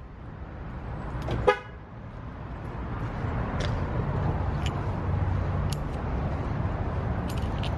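A car horn gives one short toot about a second and a half in, the lock-confirmation chirp of a car being locked by key fob just after its door shuts. Then footsteps on asphalt tick about once a second over a steady outdoor rumble.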